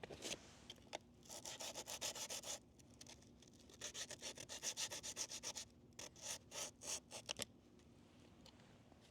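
Sandpaper rubbed by hand over the curb-rashed edge of an alloy wheel rim, in three spells of quick back-and-forth strokes with short pauses between: sanding down the curb rash gouges.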